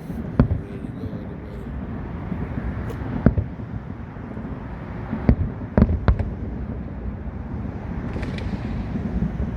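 Fireworks exploding: about half a dozen sharp bangs at uneven intervals, over a steady background rumble.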